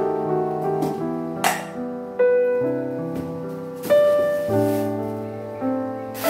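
Background piano music, slow sustained notes changing about once a second. Two brief knocks or clatters come through it, about a second and a half in and near the end.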